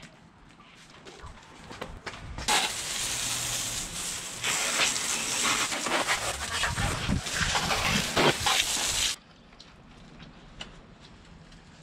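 A loud, steady spraying hiss that starts a couple of seconds in and cuts off suddenly about two and a half seconds before the end, with faint rubbing and clicks from cloth work on the motorcycle before and after it.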